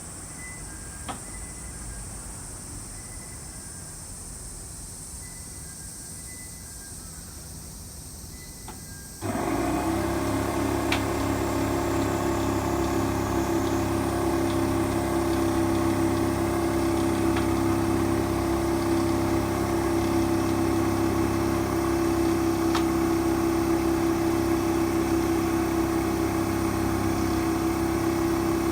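A motor-driven machine starts abruptly about nine seconds in and then runs steadily with an even hum; before that there is only faint background.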